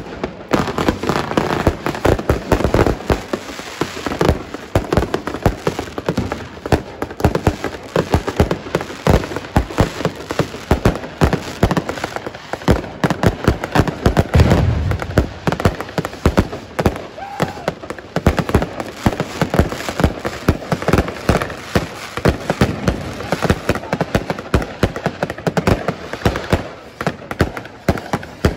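Aerial fireworks display: a dense, unbroken barrage of bursting shells and crackling sparks, with a deeper boom about halfway through.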